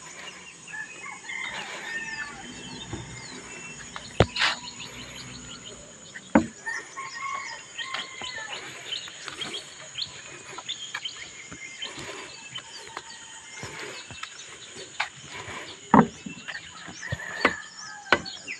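Birds chirping and calling over a steady high insect buzz, broken by a few sharp knocks.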